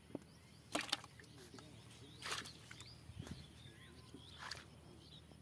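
Small birds chirping faintly, with a few short rustles and clicks from hands working a bamboo fishing rod and line among the pond plants. The loudest are two sharp clicks about a second in.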